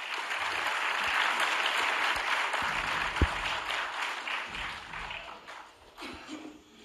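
Audience applauding in a hall, building at once and dying away after about five seconds. There is a single low thump about three seconds in.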